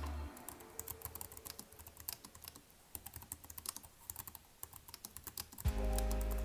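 Computer keyboard typing: a fast, irregular run of key clicks. Lo-fi music with a deep bass cuts out just after the start and comes back near the end.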